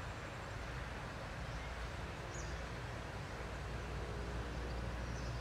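Steady background ambience, a low rumble under a faint hiss, with one brief faint high bird chirp a little over two seconds in.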